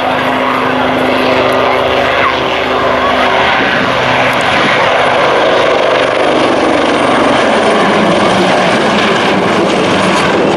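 Two AgustaWestland AW159 Wildcat helicopters flying overhead: loud, continuous rotor and engine noise. A steady low hum fades out after a few seconds, and the noise turns into a broader rush from about six seconds in.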